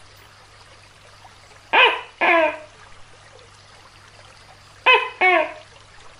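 Tokay gecko calling "to-kay" twice, about three seconds apart, each call two loud syllables falling in pitch, over a faint steady hiss.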